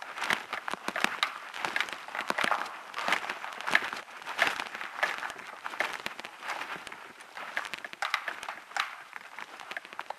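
Footsteps crunching over the loose stone floor of a disused railway tunnel, one gritty crunch with each step.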